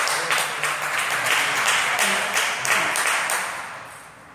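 A small crowd of spectators applauding a point won, the clapping fading out near the end.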